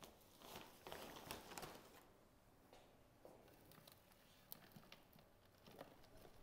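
Faint rustling of potting mix being packed down by hand, mostly in the first two seconds, followed by a few light ticks.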